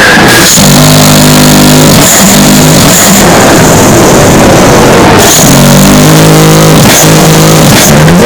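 A dog snoring, boosted until it is heavily distorted and very loud: two long, buzzing snores, one about half a second in and one about two seconds after the first ends, over a constant distorted hiss.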